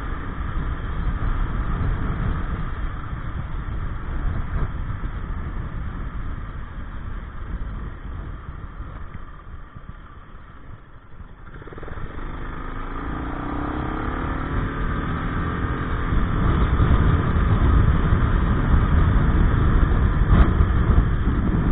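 Gilera Nexus 500 maxiscooter ridden along, its engine running under a heavy rumble of wind on the microphone, with a freshly fitted drive belt and variator rollers. The sound dies down about ten seconds in; then, after an abrupt change at about twelve seconds, the engine pulls away with rising pitch and grows louder with the wind.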